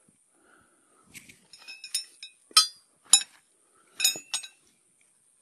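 Steel trap stakes being hammered in, a series of sharp, ringing metal-on-metal clinks at uneven spacing. They start about a second in and are loudest around the middle. The stakes are crossed, one driven in each way, so a trapped dog can't pull them out.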